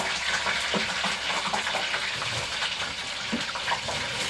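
French fries deep-frying in hot oil: a steady crackling sizzle.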